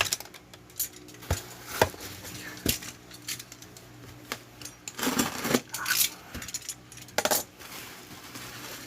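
Cardboard shipping box being handled and opened: a few separate sharp knocks and clicks, then several short rustles.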